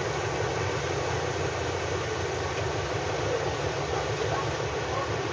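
Motorboat under way: a steady low engine rumble with an even hiss of water and wind.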